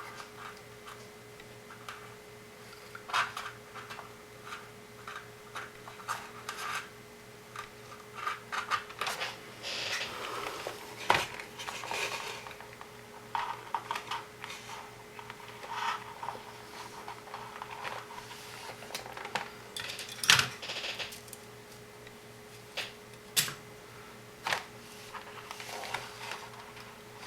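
Irregular small plastic clicks, taps and rattles of hands fitting tie wraps around an IDE ribbon cable on a robot chassis, threading and pulling the ties tight, over a faint steady hum.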